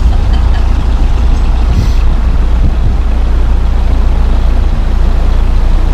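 A narrowboat's diesel engine running steadily while cruising, a constant low rumble with a hiss over it.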